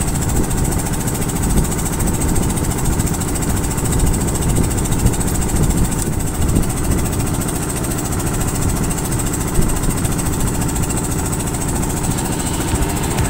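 A boat's engine running steadily, an unbroken low rumble.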